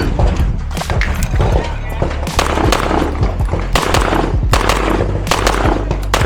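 Pistol shots fired in quick irregular strings, about eight or nine sharp cracks, over background music with a steady bass.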